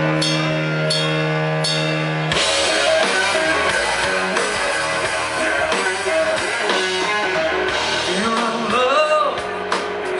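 Rock band playing live: a held opening chord with two picked guitar accents, then drums and guitars come in together about two seconds in and the band plays on at full volume.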